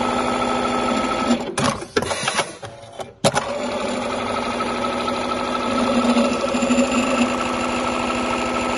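Dematron DM-9820 industrial keyhole buttonhole sewing machine stitching at speed with a fast, steady rhythm. About a second and a half in it breaks off into a few clicks and clatters between one keyhole buttonhole and the next, then a sharp knock about three seconds in and it runs on stitching the next buttonhole.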